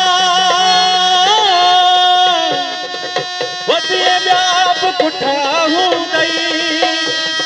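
Sindhi folk song performed live: a male singer holds a long, wavering note over harmonium, and about three seconds in drum strokes come in as the melody carries on.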